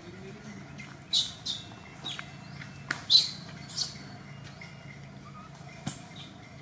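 Short, shrill animal squeaks, four or five of them between about one and four seconds in, with a couple of sharp clicks.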